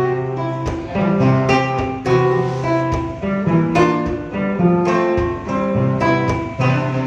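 Acoustic guitar played solo in an instrumental break: a picked melody of single notes over held bass notes, with no singing.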